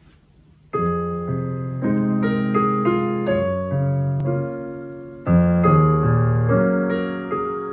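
Solo piano playing slow chords that begin about a second in, each left to ring and fade; a new, louder phrase starts a little past the halfway point.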